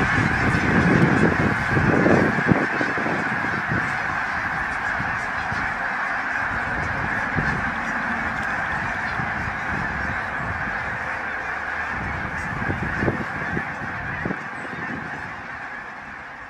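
A large flock of geese honking in a dense, continuous chorus that fades out slowly toward the end.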